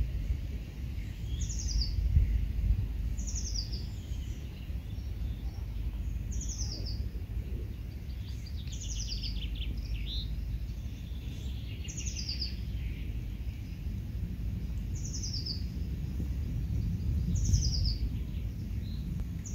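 A small songbird singing the same short, high, falling trilled phrase over and over, about every two seconds, with other birds calling faintly, over a low rumble of wind on the microphone.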